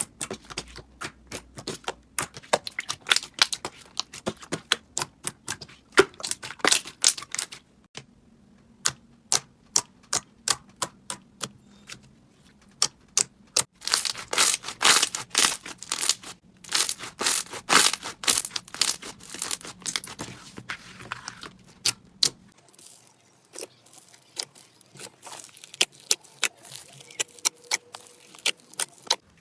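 Slime being squeezed and worked by hand, making rapid crisp clicks, pops and crackles, densest in a burst just past the middle.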